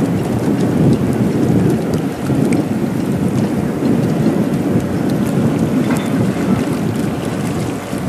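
Wind buffeting the microphone: a loud, steady low rumble that swells and eases in gusts.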